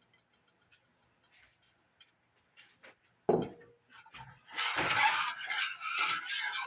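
A single dull knock a little past halfway, then a metal spoon stirring and scraping through a pot of thick cheese sauce as the cooked chicken is mixed in.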